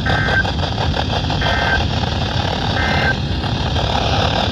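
Three short electronic beeps, evenly spaced about a second and a half apart, all at one steady pitch, over a continuous background rumble.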